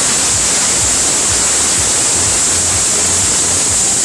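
Ground-firework Catherine wheel spinning under the thrust of its gerbs: a loud, steady, hissing rush of burning fountains throwing sparks, over an uneven low rumble.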